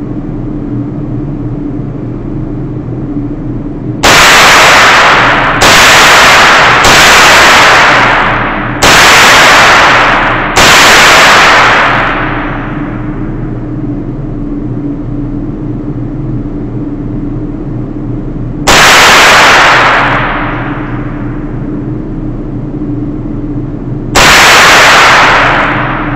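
Seven shots from a .22 LR AR-style rifle, each a sharp crack followed by a long echoing ring-out in the indoor range. Five come a second or two apart, then after a pause two more several seconds apart, over a steady low hum.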